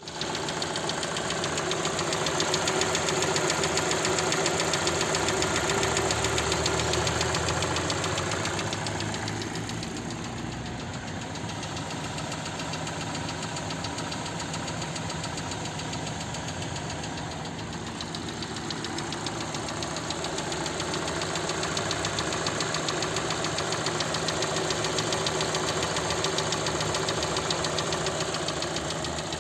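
Cold engine idling with a steady, rapid knock. It gets a little quieter through the middle and comes back up.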